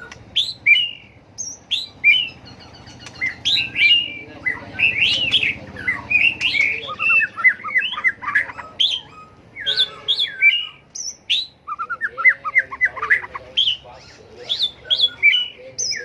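White-rumped shama singing in full competition song: a fast, varied run of clear whistles, slurred notes and chattering phrases, almost without a break.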